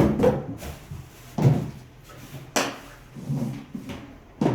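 A few hard plastic knocks and clunks, about four, spaced a second or so apart, as the parts of a small toner vacuum cleaner are handled and opened.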